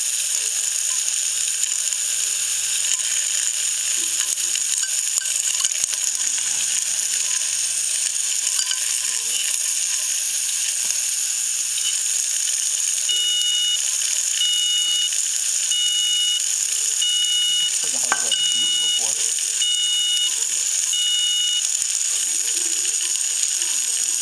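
Opened Seagate Barracuda 7200.7 hard drive spinning its bare platter at 7200 rpm with a steady high whine, dog-food kibble rattling and skittering across the platter and against the case. Midway a short high beep repeats seven times, about 1.3 s apart.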